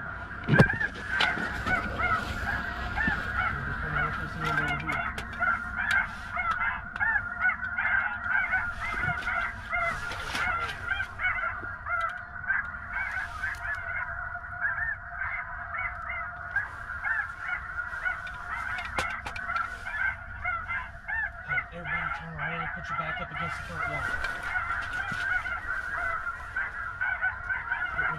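A dense chorus of many snow geese calling, countless short overlapping calls with no break, with a single knock near the start.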